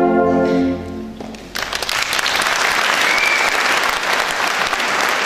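A concert wind band of brass and woodwinds holds its final chord and cuts it off about a second in. Audience applause breaks out half a second later and carries on steadily.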